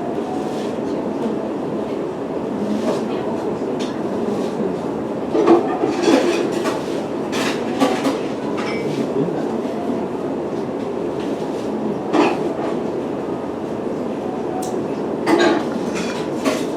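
Steady rumble of a train in motion, with scattered sharp clacks and knocks.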